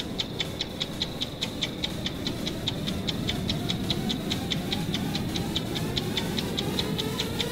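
Ticking-clock sound effect, rapid and even at about five sharp ticks a second, over a low steady drone. From about halfway through, a slowly rising tone comes in under the ticks.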